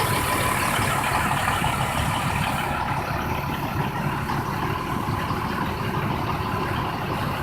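Yard switcher truck's engine running steadily, with a high hiss that stops about three seconds in.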